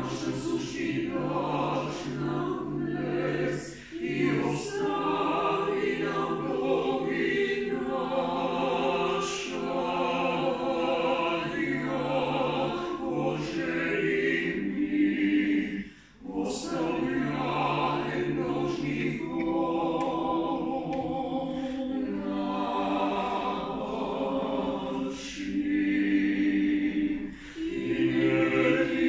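A small mixed vocal ensemble of four voices, women and a man, singing a cappella in harmony. They sing held chords in long phrases with brief breaks between them.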